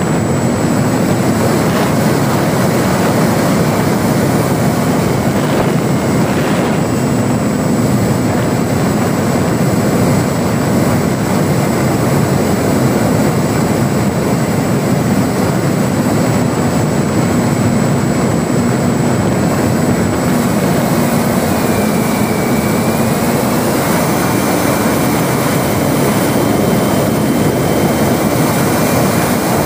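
Onboard recording of an electric ParkZone Spitfire RC model in flight: its motor and propeller running steadily under heavy wind rush. Later on, a faint high motor whine shifts and steps up in pitch.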